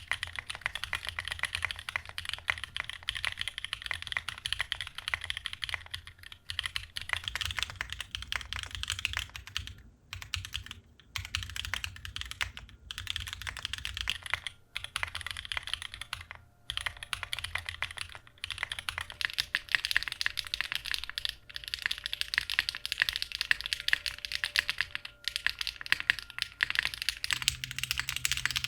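Fast, continuous typing on a mechanical keyboard, the keystrokes clacking densely, with a few brief pauses about ten and fourteen seconds in.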